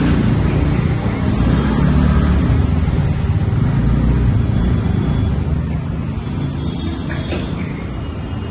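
Motor vehicle engine running, a low steady rumble that grows quieter after about five seconds.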